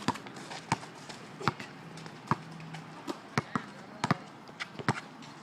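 A basketball being dribbled on a hard court, a bounce about every three quarters of a second, with a couple of quicker bounces in the middle.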